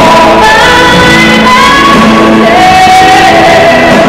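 Loud recorded song: a singing voice holding long notes that step up and down in pitch over a steady accompaniment.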